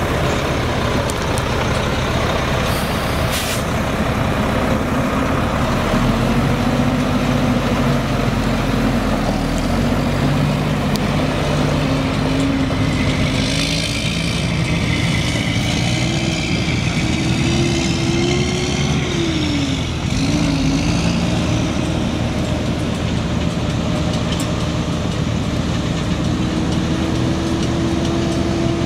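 Mack AMI 12.0-litre inline-six turbo diesel of a Mack Granite truck running steadily and loudly. Its note climbs slowly, dips briefly about twenty seconds in, then climbs again.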